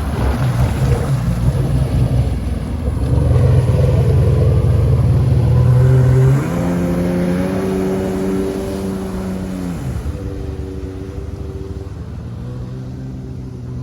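Sea-Doo RX DI jet ski's two-stroke engine running under throttle, loudest in the first half. Its pitch climbs about six seconds in, holds, then drops back about ten seconds in to a lower steady drone.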